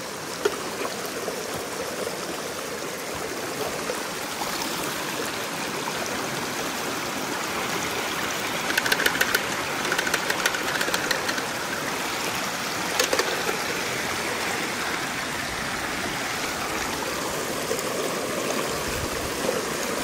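Shallow stream water running over rock, a steady rush. About eight seconds in come a few seconds of rapid clicking, with a shorter burst a little later.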